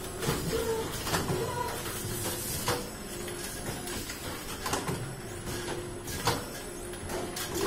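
KTK automatic screen printing machine running: a steady mechanical noise with sharp clacks and knocks every second or so as the print heads and pallets move, and short whining tones coming and going.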